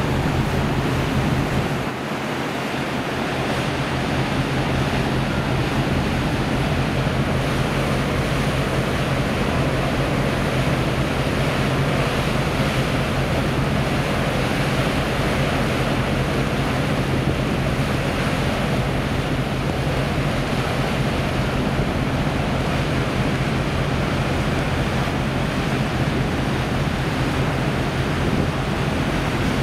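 Churning propeller wash from a car ferry under way, with wind buffeting the microphone and a steady low hum of the ship's engines underneath.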